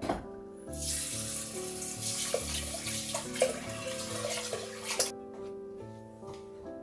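Water running from a kitchen pull-out faucet sprayer into a pot of rice, a steady splashing stream that starts about a second in and is shut off about five seconds in. Soft background music plays underneath.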